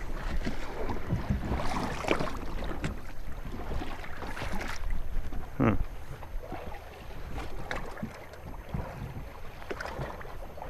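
Small boat on the water: water sloshing against the fiberglass hull, with wind on the microphone.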